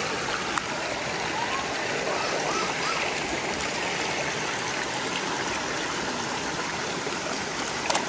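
Shallow stream water rushing steadily over rocks.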